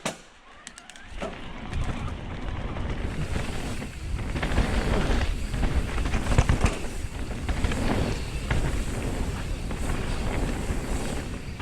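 Wind rushing over the microphone with the rumble and rattle of an e-mountain bike being ridden over a dirt trail. It starts quiet and builds about a second and a half in, then surges unevenly.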